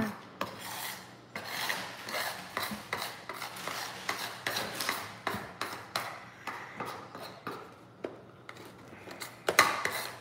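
Hands digging and scraping through kinetic sand in a plastic tub: a quick, irregular run of rasping scrapes, several a second, easing off for a moment shortly before the end.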